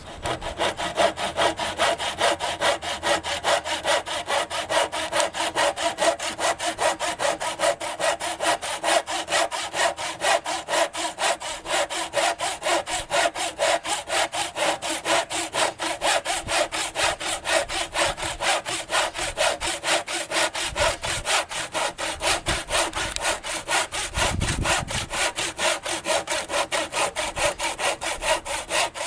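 Tenon saw cutting through a replacement ladder foot along its marked guideline, in quick, even back-and-forth strokes that keep on without a break.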